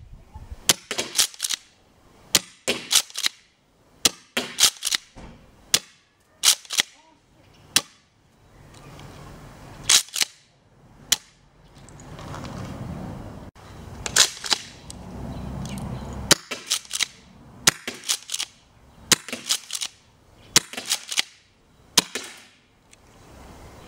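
Tokyo Marui M870 green-gas airsoft shotgun being fired and pumped over and over: sharp shots mixed with the clack of the pump action, in quick clusters all through.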